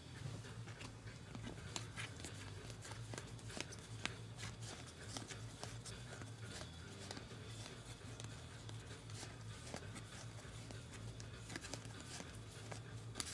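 Stack of trading cards being thumbed through by hand, the cards sliding and snapping against each other in many small irregular clicks, over a low steady hum.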